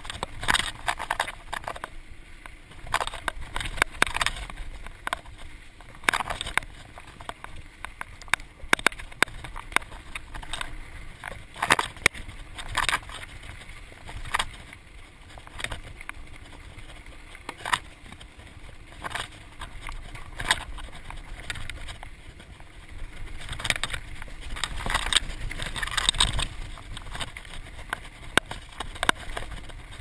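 Mountain bike riding fast down a dirt trail: tyre noise on the dirt with many irregular rattles and clanks from the bike over bumps, and a low wind rumble on the microphone.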